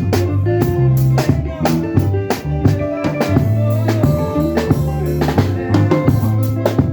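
Band music: a drum kit keeps a steady beat over a bass line and other instruments.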